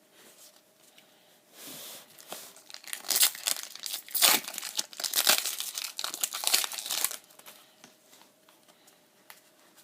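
Foil booster pack wrapper being torn open and crinkled in the hands, crackling for about five seconds and then stopping.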